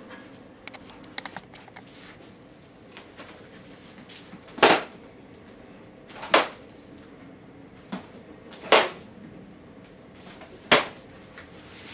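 Wooden practice swords (bokken) clashing in kenjutsu sparring: four sharp clacks, one about every two seconds, with a few light clicks before them.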